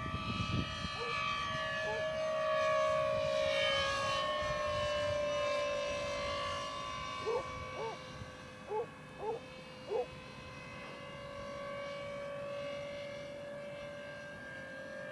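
Twin 70 mm electric ducted fans of an RC F/A-18 jet whining steadily in flight, the pitch sliding as it passes, with an odd siren-like note that the pilot cannot place after fitting an upgraded 2500kv motor. About seven to ten seconds in, five short rising-and-falling chirps stand out.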